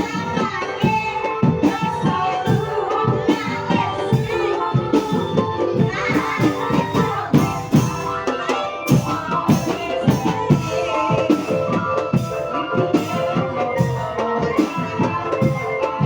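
Music with fast, dense drumming and ringing pitched percussion holding steady tones.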